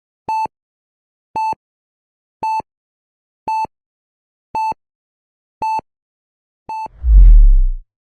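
Seven short, even electronic beeps at a steady mid pitch, about one a second like a slow pulse, then a loud deep boom near the end.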